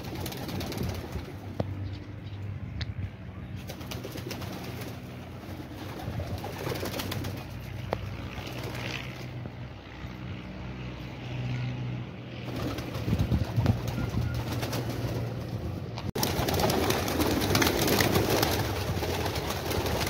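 A flock of domestic pigeons cooing. Near the end comes a louder stretch of wing flapping as many birds take off together.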